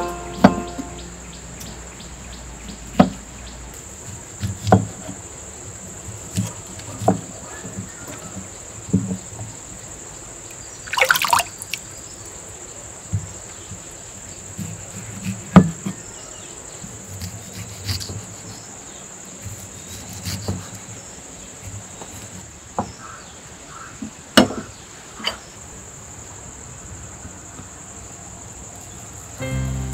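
A knife cuts ripe star fruit on a wooden chopping block, each slice ending in a sharp knock of the blade on the wood every one to two seconds. About eleven seconds in there is a longer, crisp, juicy crunch. Insects shrill steadily at a high pitch behind it.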